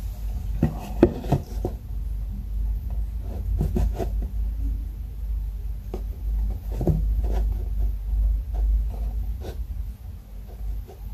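Handling noise from a hand-held phone: rubbing and rustling against the microphone, with scattered light knocks and clicks over a low rumble.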